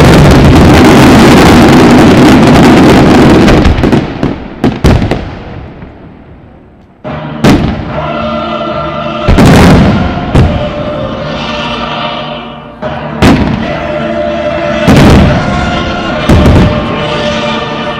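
Fireworks display: a dense, loud barrage for the first few seconds, then a few sharp bangs as it fades away. About seven seconds in, music from the show's soundtrack starts, and shell bursts go off over it several times.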